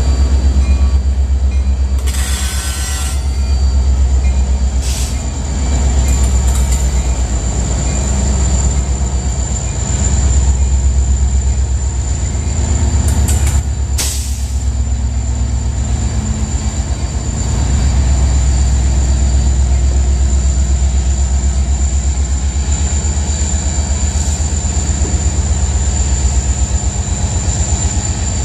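Union Pacific diesel locomotives rolling slowly past at close range: a deep steady engine rumble with the wheels running on the rails, a thin high squeal throughout and a few sharp clacks from the wheels.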